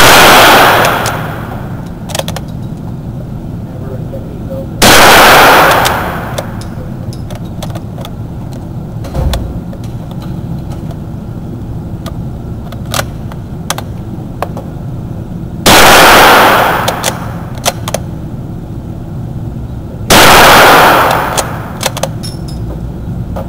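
Four rifle shots from an old Wards Western Field rifle during a test run, several seconds apart, each sharp report followed by about a second of echo in an indoor concrete range. Faint clicks and knocks come between the shots.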